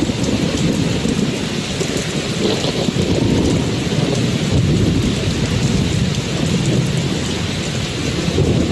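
Steady rain with a continuous low rumble of thunder.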